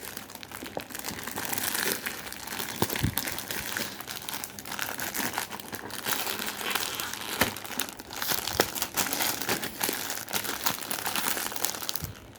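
Parcel packaging being crinkled and torn open, a dense crackling with many small clicks that dies away shortly before the end.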